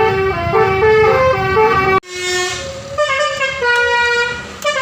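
Bus telolet basuri musical air horn playing a stepping multi-note tune, with the bus engine rumbling underneath. The sound cuts off abruptly about two seconds in, and the horn tune carries on with less engine noise.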